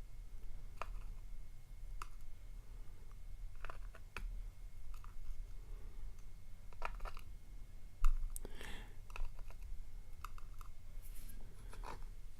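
Scattered small metallic clicks and taps as a Yale euro cylinder lock is taken apart by hand, its pins and springs being removed. A sharper tap comes about eight seconds in, followed by a brief scrape.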